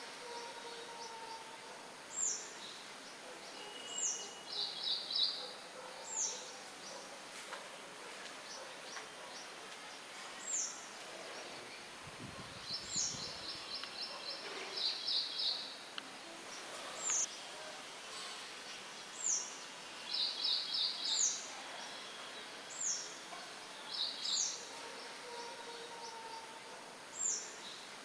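Birds chirping over a steady rustle of light wind through leaves. A short, high call that sweeps downward repeats every couple of seconds, alternating with quick trills of rapid notes. A brief low rumble comes about halfway through.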